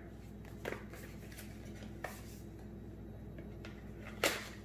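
Faint handling noises: a few soft clicks and knocks as a small drone LiPo battery and its packaging are handled, the sharpest click near the end.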